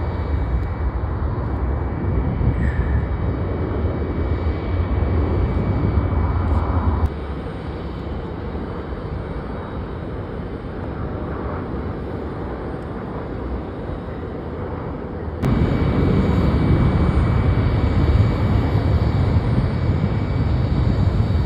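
Jet airliner engine noise: a steady rushing roar that drops abruptly about 7 seconds in and comes back louder about 15 seconds in.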